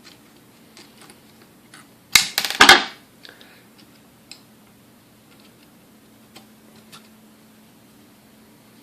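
A short burst of metal clattering and rattling about two seconds in, from small metal mixer parts and tools being handled during a teardown, followed by a few light single clicks.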